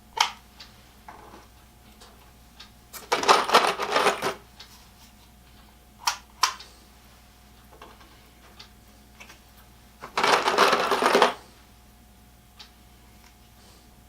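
Loose metal screws rattling and clinking as they are handled, in two bursts of about a second each, with single clicks and taps in between.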